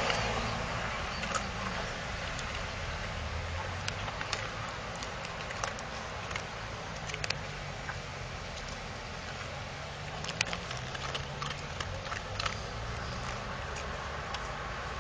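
German shepherd cross dog eating dry kibble: irregular crisp crunches and clicks, a few sharper ones about ten seconds in, over a steady background hiss.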